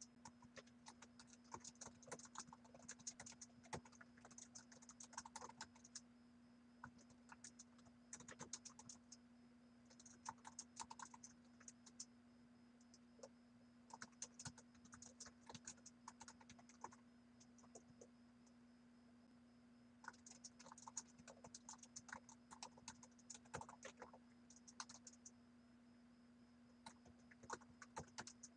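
Faint typing on a computer keyboard: quick runs of keystrokes broken by pauses of a second or two, over a steady low hum.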